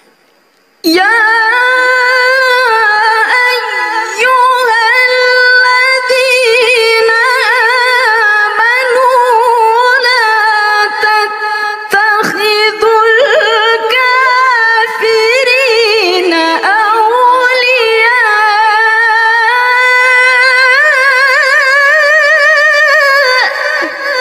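A woman reciting the Qur'an in the melodic tilawah style. It is one long, high-pitched phrase with wavering, trilled ornaments, starting about a second in and held almost to the end.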